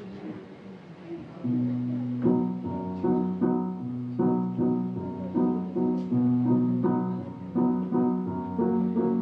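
Piano music begins about a second and a half in, with chords played in a steady rhythm over a bass line.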